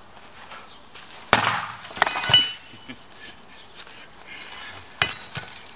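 Knocking on a door: one hard knock, then a quick cluster of rattling knocks with a glassy ringing, and another knock near the end.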